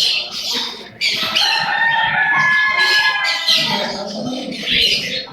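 A rooster crowing once, a long call of about two and a half seconds, among chirping from smaller birds.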